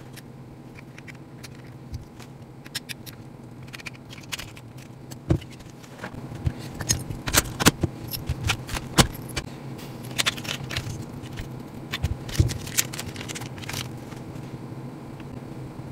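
Small metal parts and tools clicking and clinking as hands work on a small RC car chassis while the motor is fitted. The light clicks come irregularly, busiest in the middle, over a faint steady hum.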